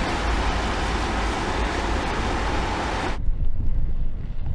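Steady road and tyre noise with rushing wind from a vehicle driving at speed. About three seconds in it cuts off suddenly to low wind buffeting on the microphone.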